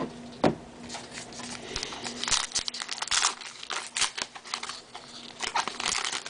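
Crinkling and tearing of a baseball card pack's wrapper as it is opened, a quick irregular run of crackles.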